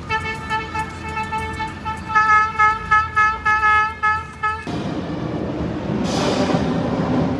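A horn honks in rapid short blasts on one steady pitch, loudest a couple of seconds in. It stops abruptly over halfway through, and a steady rushing noise follows.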